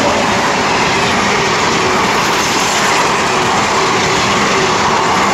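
A train running on the rails: a loud, steady rush of wheel-and-track noise that cuts off abruptly at the end.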